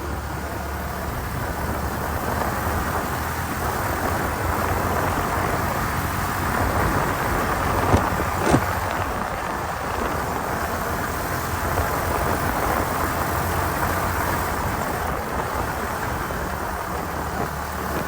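Motorcycle on the move: a steady engine hum under road and wind noise, with two sharp knocks about half a second apart around eight seconds in.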